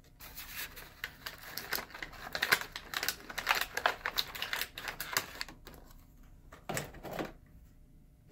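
Small metal die-cast model cars being handled on a hard surface: a quick run of light clicks and rattles for about five seconds, then a couple of softer knocks near the end.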